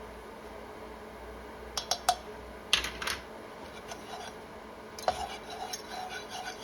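A metal spoon clinking and scraping against a pan as flour is worked into melted butter for a roux: a few sharp clinks about two and three seconds in, another about five seconds in, then lighter taps.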